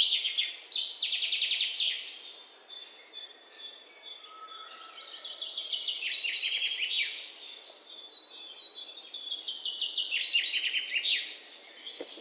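Sunbirds calling: a run of fast, high-pitched trills of rapidly repeated notes, each trill falling in pitch, several in a row.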